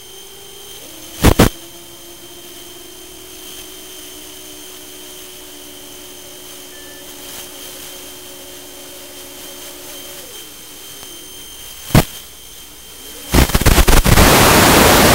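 FPV quadcopter's motors whining steadily, heard through its onboard audio with a faint short beep midway. The whine drops in pitch about ten seconds in as the failsafe cuts the runaway full throttle back to idle. Sharp loud cracks come about a second in and again near twelve seconds, then a loud crackling rush as the quad comes down into a pine tree.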